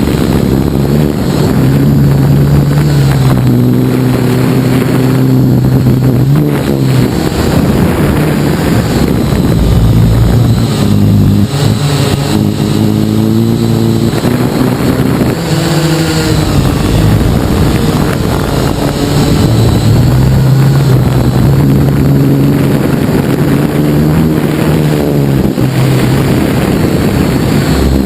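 Syma X8HG quadcopter in flight: its motors and propellers buzz loudly, the pitch rising and falling again and again as the throttle changes.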